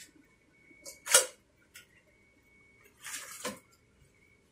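Kitchen handling clatter as crab pieces and pots are moved: one sharp clink about a second in, a few light clicks, and a short scraping rustle around three seconds in, over a faint steady high-pitched tone.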